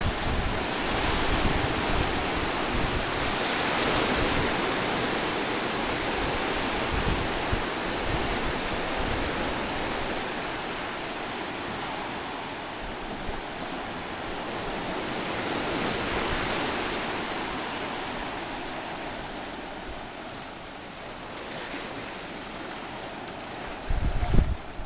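Ocean surf breaking on a beach: a steady wash of waves that swells and ebbs slowly. Wind buffets the microphone with a low rumble near the end.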